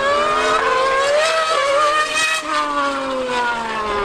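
The V8 engine of a 2013 Mercedes Formula 1 car and a Yamaha R1M superbike running hard on track. The revs climb with brief breaks for about two seconds, then fall away steadily.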